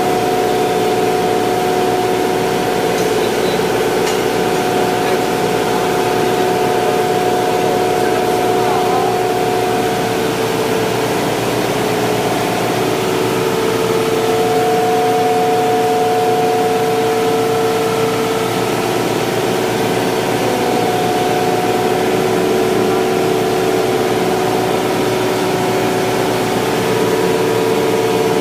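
Ice plant machinery running: a loud, steady mechanical drone with several constant hum tones, one of which drops out for a few seconds near the middle.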